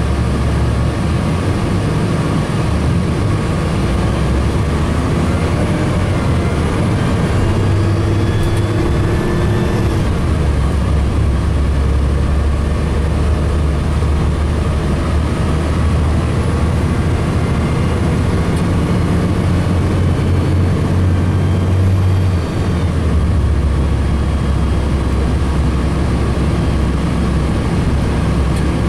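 Engine and road noise of a 2007 Gillig Phantom transit bus heard from inside while it drives: a steady, loud low engine hum. The engine note shifts a couple of times, about a third of the way in and again later. A faint rising whine comes in briefly early on.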